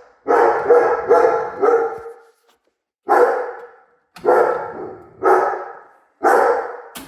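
A dog barking repeatedly: about ten sharp barks, some in quick pairs, with a pause of about a second early on before the barking resumes.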